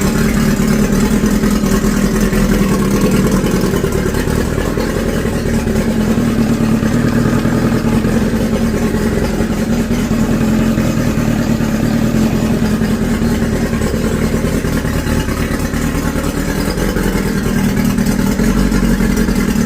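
Outboard motor running steadily and evenly with its gray fuel hose replaced by a black one: no longer starved of fuel by the broken-down hose lining.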